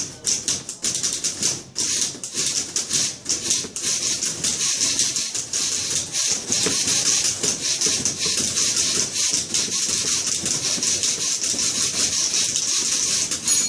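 Several manual typewriters typed fast together as a percussion ensemble: a dense, steady clatter of key strikes. A typewriter bell rings at the very end.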